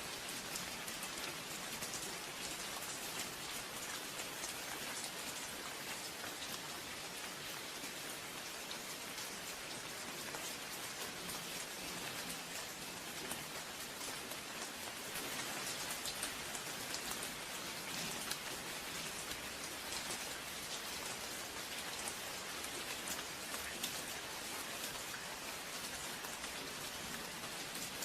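Steady rain falling, an even hiss of countless small drop hits that stays at the same level throughout.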